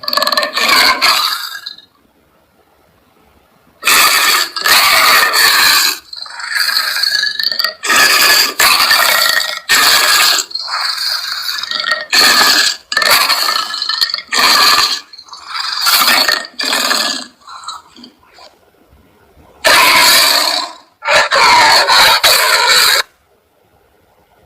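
A string of designed film sound effects for the symbiote Carnage: rough, scraping creature sounds, each lasting a second or two, with short silences between them.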